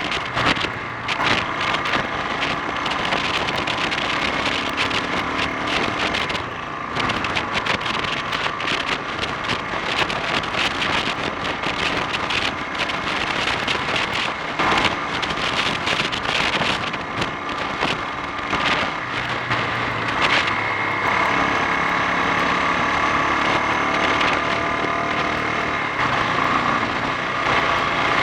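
Honda XL 350's single-cylinder four-stroke engine running under way, its note rising and falling with the throttle and dipping briefly about six seconds in, with wind rushing over the microphone. The bike is on a test for a splutter and bogging down under acceleration.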